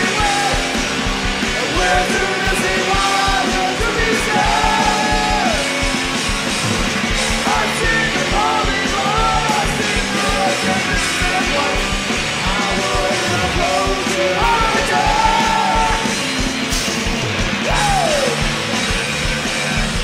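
Live rock band playing a song: a steady drum beat and guitars with a singing voice over them.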